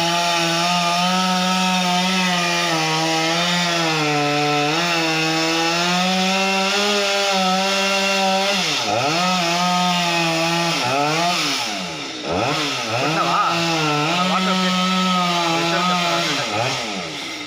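Chainsaw running at high speed, held steady for the first half as if cutting. In the second half the engine speed repeatedly drops and rises again, with the throttle eased off and reopened.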